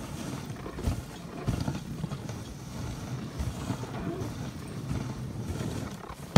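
Dog sled gliding along a snowy trail behind a dog team: the runners hiss on the snow, with irregular bumps and knocks from the sled. A sharp knock comes right at the end.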